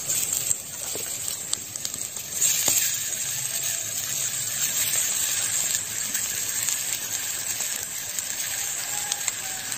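Ground red mushrooms with chile and cumin sizzling as they are tipped into hot oil and onion in a clay cazuela, the sizzle growing stronger about two and a half seconds in. A few light clicks come from the wooden spatula scraping the clay bowl.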